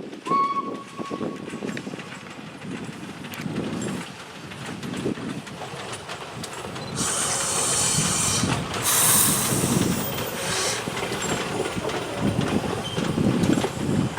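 Steam locomotive letting off steam: a loud hiss for about four seconds in the second half, over a low rumble. A short steady tone, like a brief whistle, sounds just after the start.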